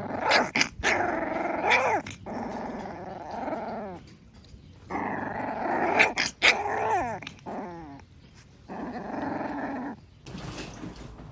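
An animal growling in three drawn-out bouts, the pitch bending up and down, with a few sharp clicks near the start and in the middle.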